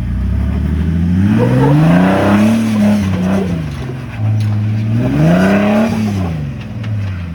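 Off-road vehicle's engine revving up and back down twice, rising and falling in pitch, as it works under load to climb a rock ledge.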